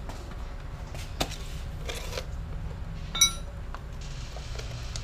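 Small metal parts and a wrench being handled on a cloth rag: a light knock about a second in, then a sharp clink that rings briefly about three seconds in.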